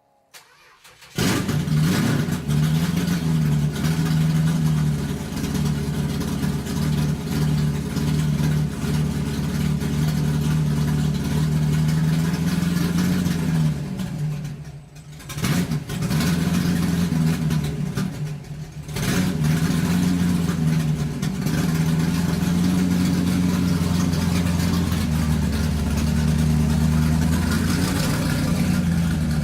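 Motor running loudly and steadily, cutting in abruptly about a second in. Twice around the middle it briefly drops in loudness and sags in pitch before picking back up.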